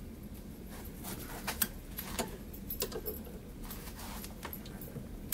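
Pliers working the clipped end of a lure's wire loop held in a bench vise: a scatter of small metallic clicks and clinks as the wire is bent down.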